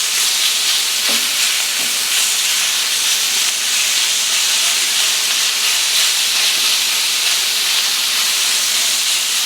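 Chicken pieces frying in a hot, oiled carbon steel skillet, a steady sizzle as they brown.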